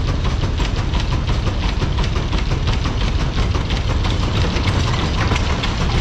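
Electrolux inverter washing machine running hard on spin, a loud steady mechanical din with rapid knocking and rattling from the drum and cabinet.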